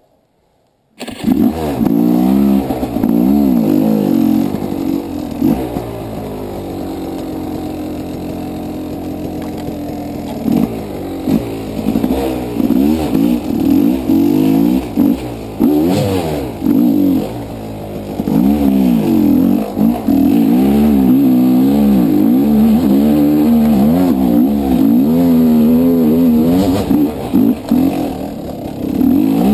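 Dirt bike engine, heard from the rider's helmet, coming in loud about a second in and then revving up and down repeatedly as the bike is ridden, with a steadier stretch for a few seconds in the early part.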